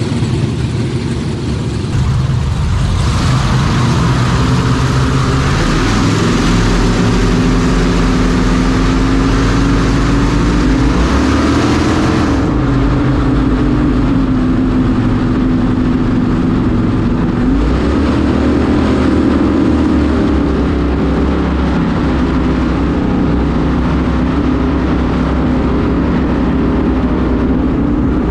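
V16 engines of a 50-foot offshore racing powerboat running hard at speed, their pitch rising and falling with the throttle over a steady rush of water and wind noise.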